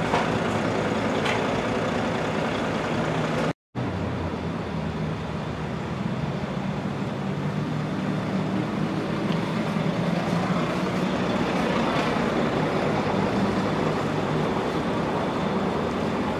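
Heavy diesel engines idling in a steady low hum. The sound drops out for a moment about three and a half seconds in.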